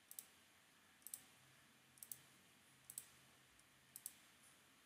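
Faint computer mouse clicks, each a quick press-and-release pair, five pairs about one a second, as devices are placed one after another.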